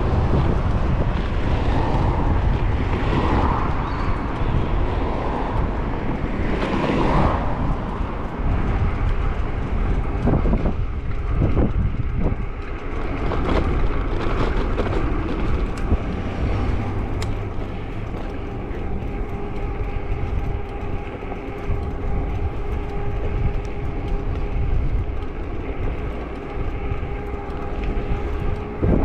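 Wind rushing over the microphone and road noise while riding along a road at speed, gusting in the first several seconds, with a steady droning tone joining for about the last ten seconds.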